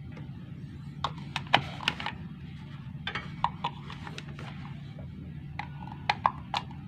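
Sharp clicks and knocks of a power plug and cables being handled and a plug pushed into an extension-cord outlet, over a steady low hum.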